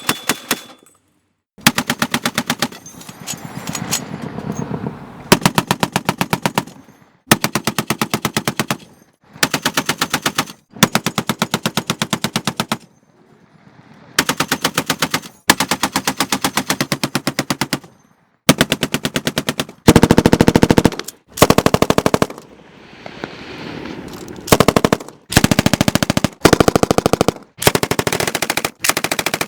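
Machine-gun fire in repeated bursts of rapid, evenly spaced shots. Each burst lasts a second or two, with short pauses between, and a few bursts trail off in echo.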